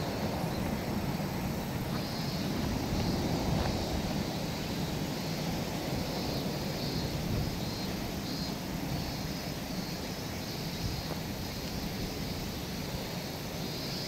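Open-air ambience: a steady low rumble with faint high chirping that comes and goes.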